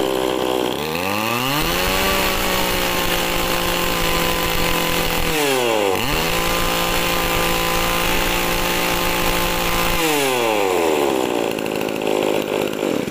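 Tanaka two-stroke brush cutter engine running: idling, revved up to a high steady speed, a short dip and back up, then back to idle and shut off at the end. It runs crisp and clean, a sign of a healthy engine.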